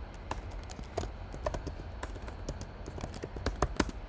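Typing on a computer keyboard: quick, irregular key clicks, with a few harder strokes near the end, over a low steady hum.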